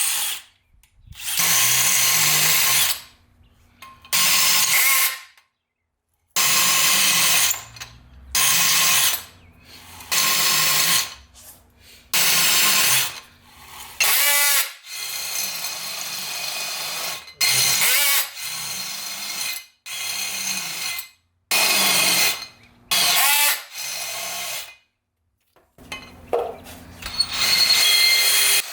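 Power drill running in repeated short bursts, each about a second long, stopping and starting again over and over.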